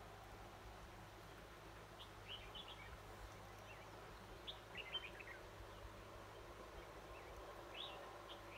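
Red-whiskered bulbul singing three short, faint phrases of quick chirps, a couple of seconds apart, over a low steady hiss.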